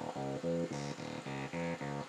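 LittleBits Korg synth oscillator, stepped by a LittleBits sequencer, playing a fast repeating run of short buzzy notes, about six a second, through the synth's filter. A second oscillator sweeps the filter cutoff as control voltage, so the tone brightens and dulls as the pattern repeats.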